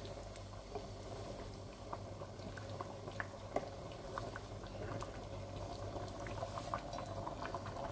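Pot of chicken stock (yakhni) with soaked rice in it coming to the boil for pulao, bubbling with many small scattered pops, over a low steady hum.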